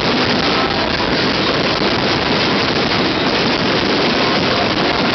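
Fireworks finale as a dense, steady crackling roar, with many bursts blending into one continuous noise and no single bang standing out.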